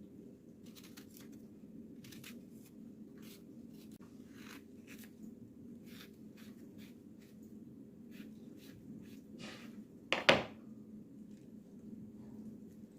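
Kitchen food preparation: a run of short scraping strokes, with one sharp knock about ten seconds in, over a steady low hum.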